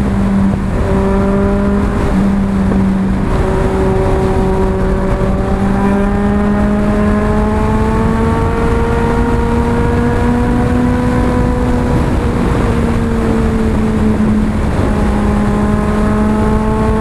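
Motorcycle engine running steadily while riding at speed, with wind rushing over the helmet-mounted microphone. The engine note dips briefly near the start, climbs slowly through the middle, then falls back about twelve seconds in.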